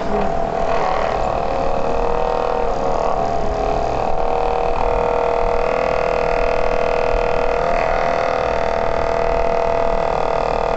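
Pickup-coil testing board running with a steady hum made of several even tones, a little stronger about five seconds in. Its pickup-coil pulses are driving the digital meter's RPM bar graph.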